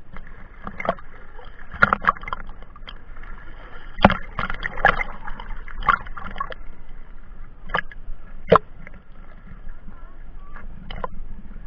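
Sea water splashing and sloshing against a waterproof action-camera case at the surface, heard through the housing as a run of sharp, irregular splashes and knocks.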